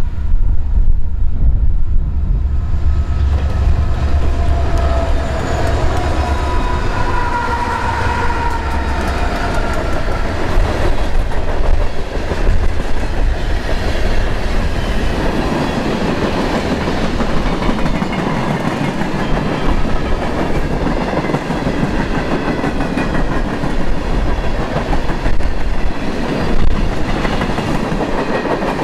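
Covered hopper cars of a long freight train rolling past: a steady rumble and clatter of wheels on rail.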